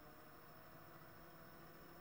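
Near silence with a faint, steady hum from a small DC scooter motor running really quietly as its speed controller turns it up toward 1,000 rpm.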